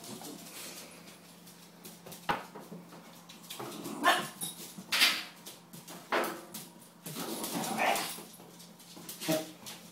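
Staffordshire bull terrier giving about half a dozen short, separate barks spread over several seconds.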